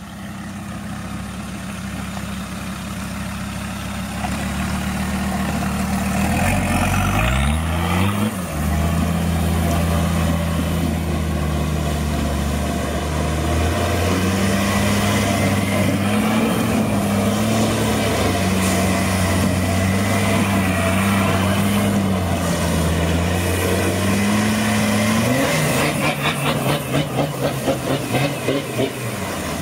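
Engine of a modified GAZ-69 off-road special revving up about eight seconds in, then running steadily under load with its pitch rising and falling slightly as the vehicle pivots in tight circles on its directional brakes on dirt. It revs higher near the end, where a fast rhythmic pulsing joins in.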